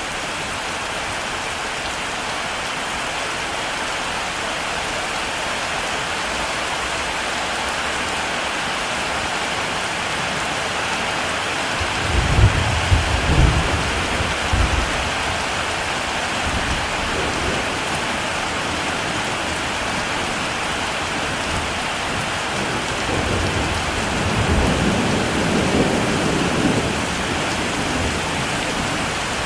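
Heavy rain falling steadily over open rice fields, with rolling thunder rumbling in twice: a low rumble about twelve seconds in and a longer one in the last third.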